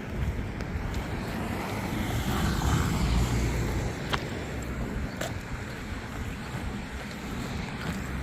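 Road traffic passing, with one vehicle getting louder as it goes by about two to three seconds in, over wind noise on the microphone.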